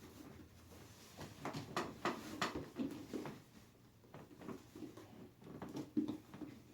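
Quiet rustling and soft knocks of handling: clothing, shoes and bodies shifting. The strokes come in a quick cluster about one and a half to three and a half seconds in, with a sharper tap near the end.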